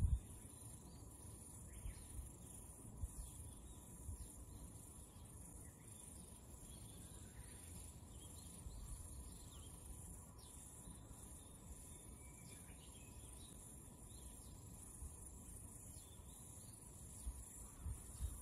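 Steady, high-pitched insect trilling, with faint bird chirps now and then and a few low thumps.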